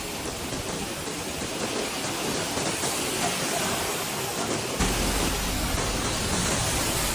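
Heavy rain falling, a steady hiss. About five seconds in, a deep low rumble suddenly joins it.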